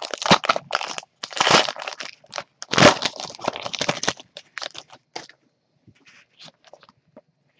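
Plastic wrapper of a Panini Prizm Fast Break basketball card pack being torn open and crumpled: loud crinkling in close bursts for about four seconds, then a few faint ticks and rustles that die away.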